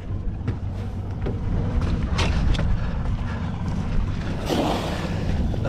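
Boat motor running low and steady, with a few knocks and, about four and a half seconds in, a short splash as a crab pot goes into the water.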